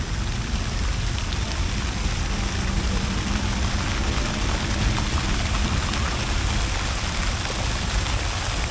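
Fountain jets splashing down into the pool, a steady hiss of falling water.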